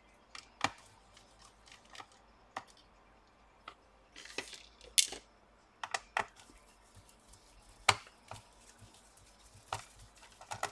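Sharp, scattered clicks and taps of a screwdriver and screws on the laptop's bottom cover as the case screws are taken out, about half a dozen a second or two apart, with a short rustle about four seconds in.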